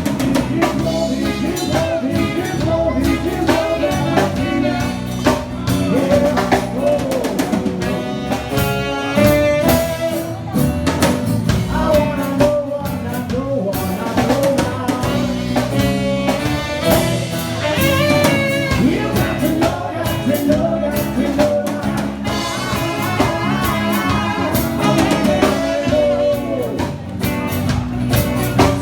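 A band playing a pop-rock cover with a drum kit, with some singing.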